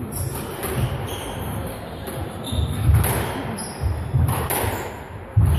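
Squash rally: the ball cracks off rackets and walls about four times, a second or more apart and loudest near the end, over players' footsteps thudding on the sprung wooden court floor.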